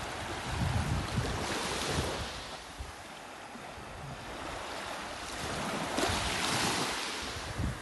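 Small sea waves washing on the shore, with wind rumbling on the microphone. The surf swells up twice, about a second and a half in and again around six seconds.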